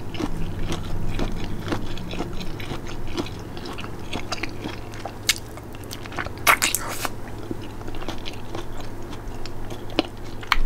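A person chewing and biting food close to the microphone, with many small mouth clicks and a few louder crisp noises about five and a half and six and a half seconds in, over a steady low hum.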